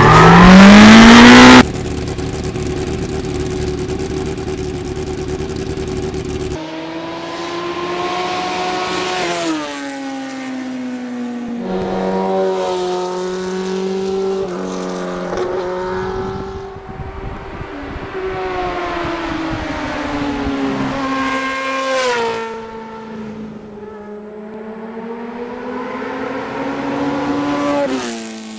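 Motorcycle engine revving as the bike rides past, its pitch climbing and dropping several times. It opens with a loud, short rising rev followed by a few seconds of steady rushing noise.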